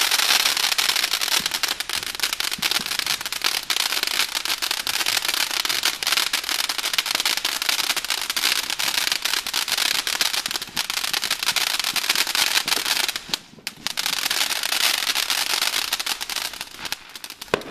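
Ground fountain firework spraying sparks: a continuous dense crackling over a hiss, with a brief lull about thirteen seconds in, dying away near the end.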